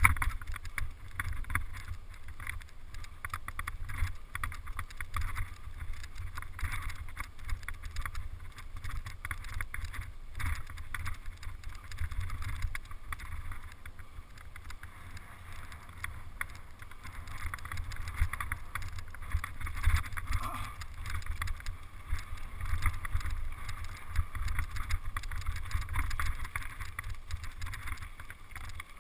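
Wind buffeting the microphone of a bike-mounted action camera over the rolling crunch and rattle of a mountain bike's tyres on a grassy, stony trail, a continuous low rumble with irregular clicks and crackle.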